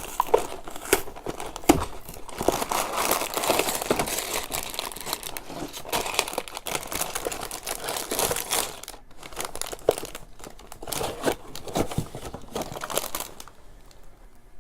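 A LEGO set's cardboard box being torn open and the plastic parts bags inside crinkled and handled: dense rustling with many small clicks, thinning out near the end.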